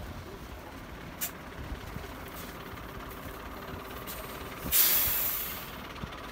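Diesel engine of a Belarus MTZ tractor running steadily. Just before the end comes a loud, sudden hiss of released air, the sound of an air brake letting off, fading over about a second.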